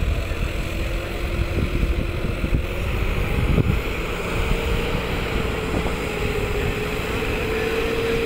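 John Deere four-wheel-drive tractor engine running steadily as it works a flooded paddy, its pitch holding and then rising slightly over the second half. Heavy wind buffets the microphone throughout.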